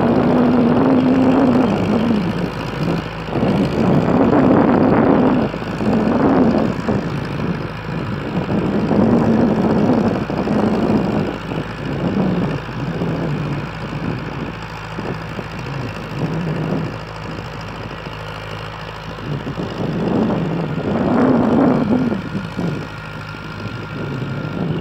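Diesel engine of a large Ford farm tractor working under load while plowing soil, its revs swelling and dropping back every couple of seconds.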